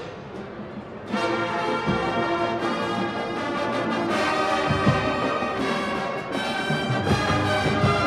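A university marching band's brass section and drumline playing. A quiet held passage gives way about a second in to a loud full-brass entry of sustained chords, with low drum hits beneath.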